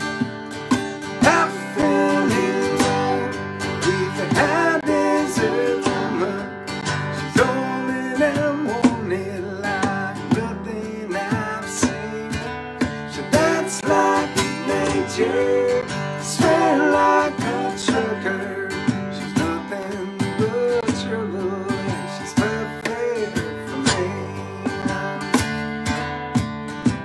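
Acoustic guitar strummed in a steady rhythm, with several voices singing together in an acoustic folk-country song.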